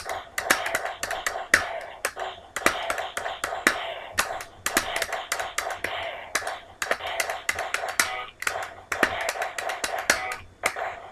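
Beatboxing: quick rhythmic clicks and pops made with the mouth, keeping a beat.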